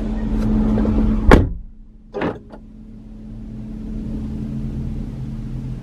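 A car door shutting with a sharp thud about a second and a half in, followed by two softer knocks, over the steady low hum inside a parked car.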